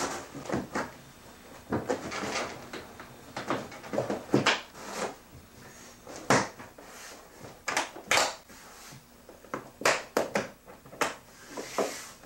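A hard plastic suitcase being pressed shut and its latches fastened: a series of knocks and clicks of plastic against plastic, with rustling in between.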